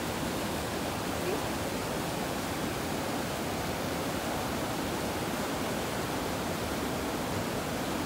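Steady rushing of river water pouring over a low weir.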